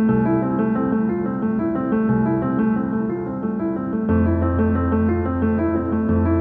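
Background music led by piano or electric keyboard: a steady figure of repeated notes over a bass note that changes about every two seconds.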